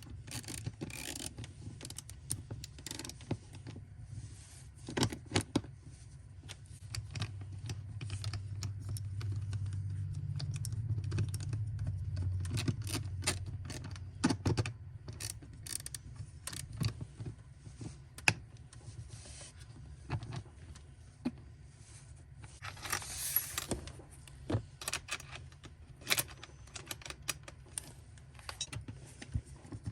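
Items being unboxed and handled: irregular clicks, taps and knocks, with a low rumble in the middle stretch and a short rustle about 23 seconds in.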